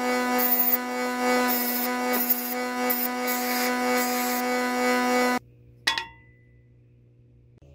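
Rusty steel garden trowel blade pressed against a spinning bench grinder wheel: a steady motor whine under a harsh, pulsing grinding hiss that cuts off abruptly about five seconds in. A single sharp click with a brief ring follows.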